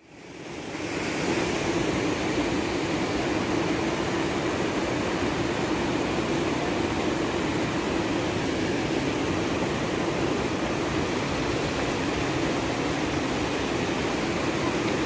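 Steady rushing of a fast mountain river below the trail, fading in over the first second or so.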